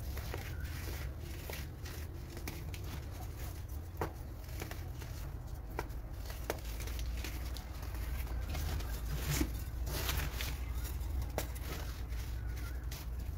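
A moulded chunk of baking soda crushed and crumbled between the fingers: soft crunching and crackling with scattered sharp snaps as pieces break off, a little denser about two-thirds of the way through, over a steady low hum.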